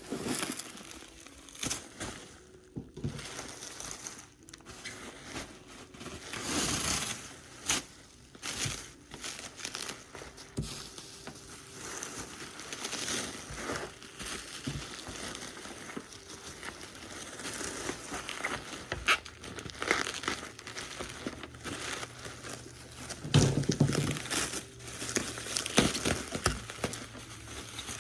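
Packing material crumpling and crinkling as it is handled, with scattered sharp clicks and knocks.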